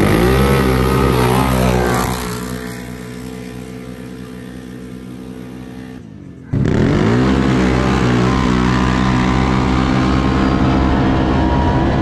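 Quad engines launching hard in a dirt drag race, revving up steeply and then holding at high revs as they pull away and fade. After a break about six seconds in, another run starts: an engine revs up fast close to the microphone and stays loud until it cuts off suddenly at the end.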